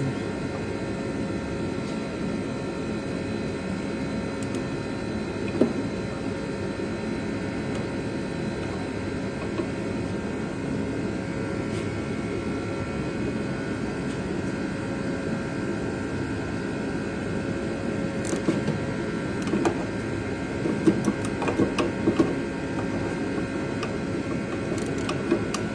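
A steady mechanical drone with several constant tones, like a running shop fan or heater. From about two-thirds of the way in come scattered light clinks and knocks of metal parts being handled.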